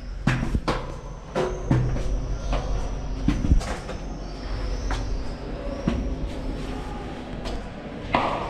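Footsteps climbing stone stairs in a narrow stairwell: irregular knocks and scuffs about every half second to a second, over a steady low rumble. A faint high wavering whine sounds for a few seconds in the middle.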